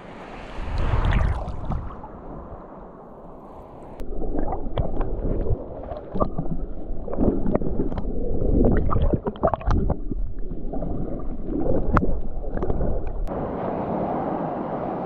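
Sea water sloshing, splashing and gurgling right at the microphone at the water's surface. A surge of rushing water comes about a second in, then irregular splashes and gurgles, and near the end an even rush of whitewater.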